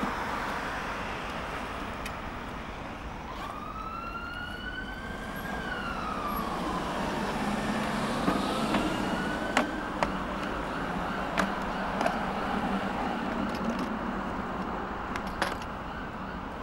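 Emergency-vehicle siren wailing over steady street traffic noise: one long rise and fall, then a second rise that holds high. From about the middle on, a few sharp clinks of metal hand tools being handled in a plastic tool case.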